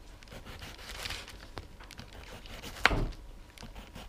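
Kitchen knife slicing through a cucumber and knocking on the cutting board: a few scattered knocks, with one louder knock about three seconds in.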